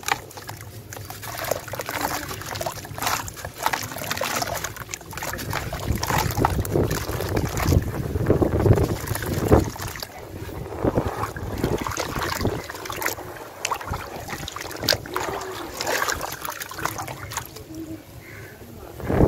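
Hands crumbling a dry sand-cement chunk into a plastic tub of water and working the wet grit between the fingers. Irregular gritty crunching and falling grains mix with water sloshing, busiest about halfway through.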